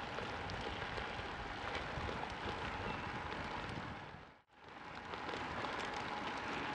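Wind rushing over a moving camera's microphone, mixed with tyre and road noise from the bicycles rolling along. The noise fades out to near silence for a moment a little past halfway, then returns.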